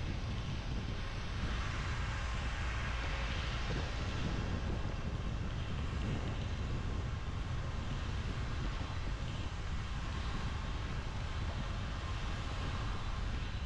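A car driving on a wet road in the rain: a steady low rumble of road and engine noise under a hiss of tyres on water, the hiss swelling briefly a few seconds in.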